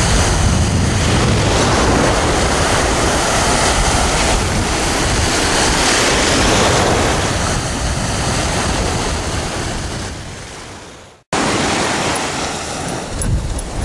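Ocean surf washing in, loud and steady, with wind rumbling on the microphone. The sound cuts out abruptly about eleven seconds in and then resumes.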